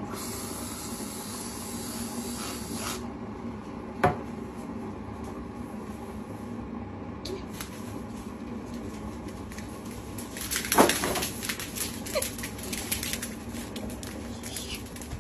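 An aerosol whipped cream can spraying with a hiss for about three seconds. About ten seconds in comes a louder flurry of clicks and scuffles.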